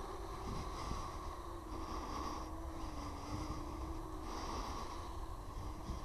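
Home-built quadcopter's propellers and motors buzzing in flight at a distance, a steady drone whose pitch wavers slightly as it manoeuvres.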